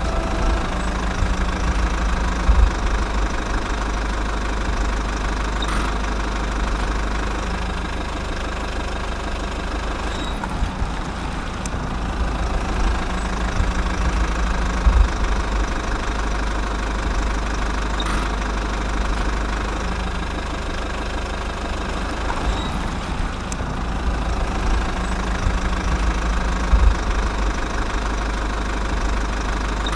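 A steady idling engine rumble, heavy in the low end, with slight swells about every twelve seconds.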